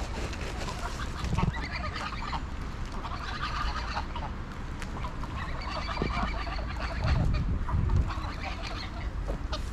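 A flock of greylag geese calling while grazing: four bursts of chattering honks, with a few low thumps among them.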